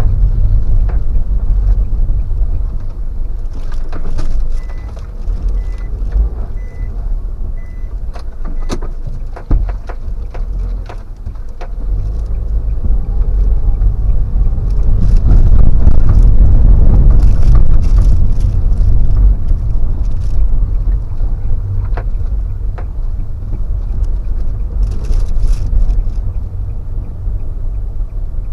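Nissan Serena running on test after its cylinder 3 misfire was fixed: a steady low rumble of engine and road, louder around the middle. A short run of faint, evenly spaced high beeps comes a few seconds in.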